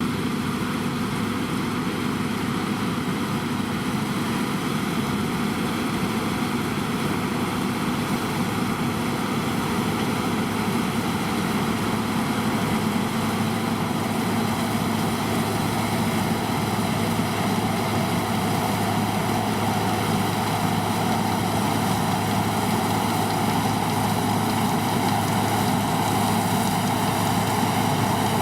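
Deutz-Fahr combine harvester running steadily, its engine and machinery giving a constant, even drone with a steady hum.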